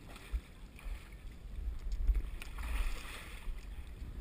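Low, uneven rumble of wind and handling noise on a body-worn camera's microphone as the wearer scrambles up a steep dirt slope, with a stretch of scuffing and rustling about two and a half seconds in.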